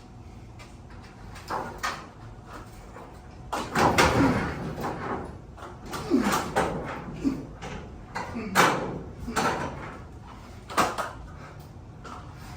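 Metal sectional garage door banging and scraping: a string of sharp clanks and rattles, loudest about four seconds in, with a couple of short falling screeches of metal scraping.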